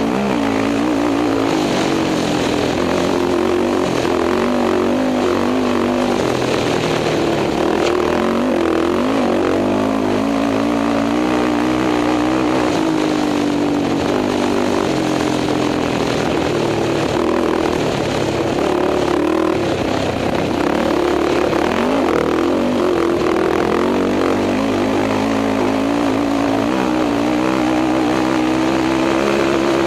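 Racing quad (ATV) engine running hard at speed on a desert dirt trail, its revs rising and falling steadily without letup, heard from an onboard mount with wind and trail noise.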